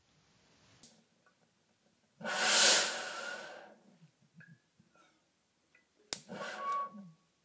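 Fuel vapour burning in a lidded glass jar, a 'jet engine in a jar': a loud rushing whoosh with a faint whistle about two seconds in, then a sharp pop and a second, shorter whoosh with a whistle about six seconds in.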